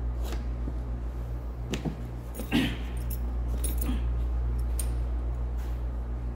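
Light metallic clinks and rattles of small metal parts being handled, half a dozen scattered over a few seconds, the loudest about two and a half seconds in, over a steady low hum.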